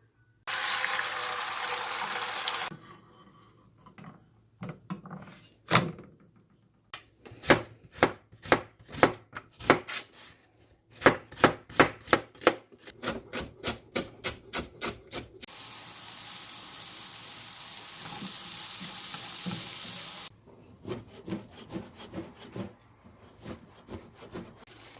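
Kitchen prep: a knife chopping on a cutting board in runs of quick strokes, about three a second. Tap water runs briefly near the start and again for about five seconds later on.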